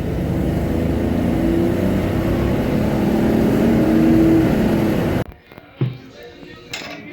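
Car engine running with tyre noise, loud and steady, cutting off abruptly about five seconds in; faint clinks follow.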